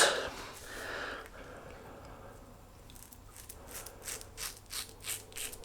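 Quad edge safety razor scraping through lathered stubble: short rasping strokes repeated about three times a second, starting about three seconds in.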